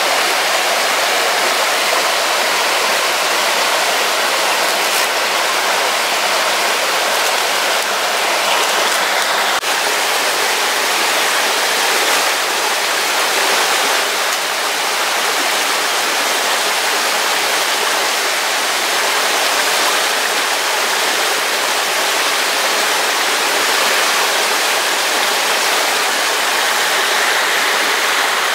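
Stream water rushing steadily over rocks and a small cascade, an even, unbroken hiss.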